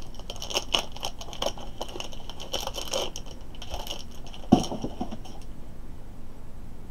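Hard plastic battery packaging crinkling, crackling and clicking as it is handled and pried open, with one sharp knock about four and a half seconds in.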